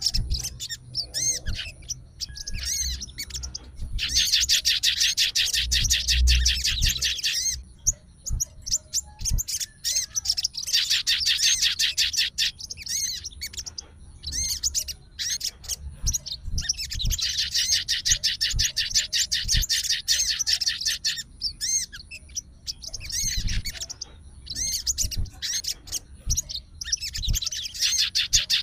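Sogon (crested jay) calling in bouts of fast, high rattling trills, each a few seconds long with short pauses between; the call of a fighter sogon challenging a rival.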